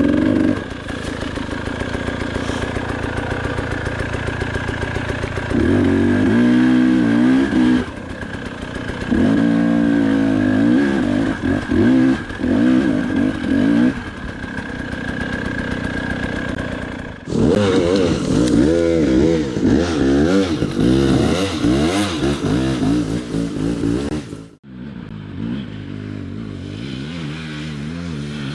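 Dirt bike engine revving hard in several long bursts, dropping back to a steady idle between them.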